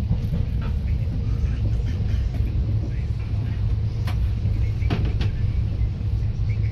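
Passenger train running along the line, heard from inside the carriage: a steady low rumble of wheels on rails, with a few sharp clicks about four and five seconds in.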